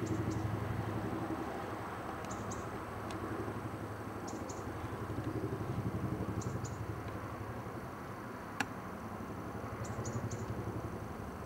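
Boeing CH-47 Chinook tandem-rotor helicopter approaching: a steady low rotor drone with fast, even pulsing from the blades.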